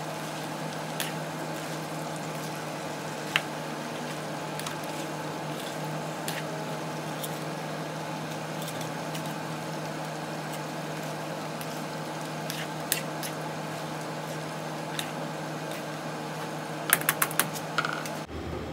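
Vegetables sizzling steadily in a stainless-steel frying pan on a gas burner while being stirred with a spatula, with scattered light clicks of the spatula against the pan and a quick run of taps near the end.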